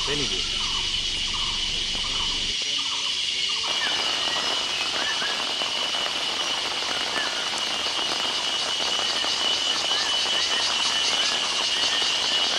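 Insects droning steadily at one high pitch, with short chirping calls repeating over it, about two a second at first and then denser and quicker after the sound changes abruptly three to four seconds in.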